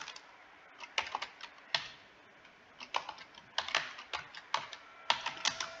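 Typing on a computer keyboard: sharp keystrokes in short irregular runs, with a pause of about a second near the middle, as a search word is typed, corrected and retyped.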